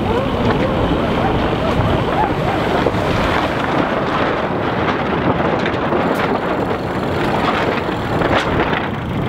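Steady rush of wind buffeting the microphone aboard a racing sailboat under sail, with faint crew voices under it.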